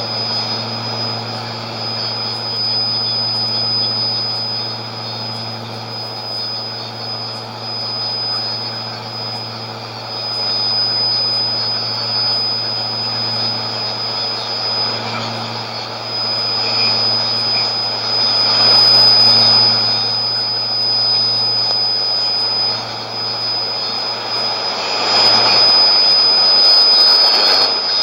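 Shortwave radio reception on a Sony ICF-2001D of a strange test transmission from the Nauen transmitter on 5990 kHz: a steady droning noise with a low hum under it and a thin, steady high whistle over it. The hiss swells louder twice, about two-thirds of the way through and again near the end.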